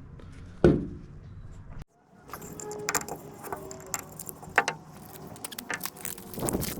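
Fuel filter and housing parts being handled and fitted: one loud knock about a second in, then after a short break a run of small clicks, taps and light rattling.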